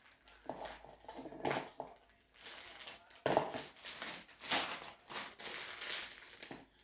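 Plastic piping bag filled with yellow buttercream, crinkling and rustling in a run of short, irregular crackles as its top is twisted and squeezed closed.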